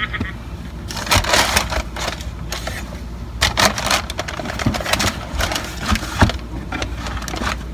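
Handling noise from a pair of leather sneakers being picked up and moved about: irregular crinkling, rustling and soft knocks, coming in clusters with short gaps.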